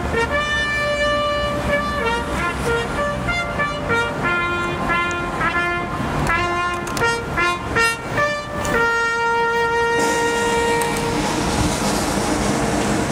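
A solo brass instrument sounding a call of short notes that jump between a few pitches, ending about nine seconds in on a long held note that stops around eleven seconds.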